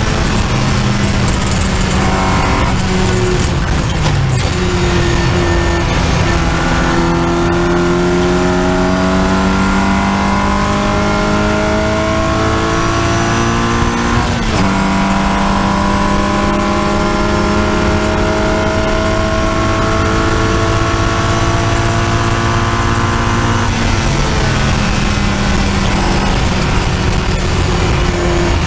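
Triumph Spitfire's four-cylinder engine racing under full throttle, heard on board. The revs dip about four seconds in, then the note climbs steadily through the gear, falls sharply at an upshift about halfway, climbs again, and eases off lower near the end.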